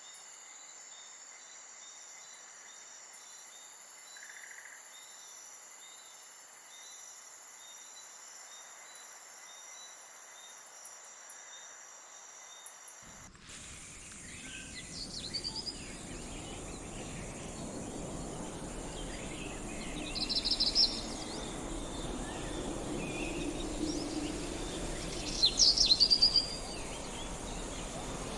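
Steady chorus of crickets and other insects trilling for about the first half, then, after an abrupt change, outdoor ambience with birds chirping in short bursts, loudest near the end.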